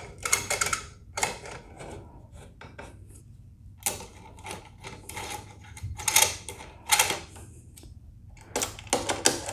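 Irregular clusters of light metal clicks and clinks: a 5 mm hex key working bolts hand-tight into an aluminium luggage rack, with quiet pauses between the turns.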